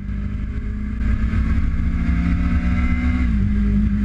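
Triumph TT600 sports bike's inline-four engine pulling at road speed, heard from the rider's seat with wind rumble on the microphone. The engine note climbs steadily, then drops about three seconds in.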